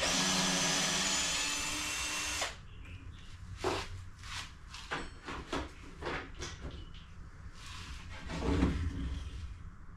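Cordless drill running into a hardwood fence paling for about two and a half seconds with a steady motor whine, then stopping. Scattered knocks and clatter of the drill being set down and timber being handled follow, with a louder bump near the end.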